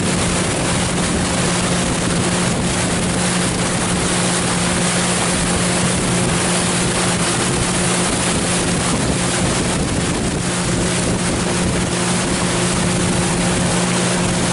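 A river boat's motor running at a steady speed, with water and wind rushing past.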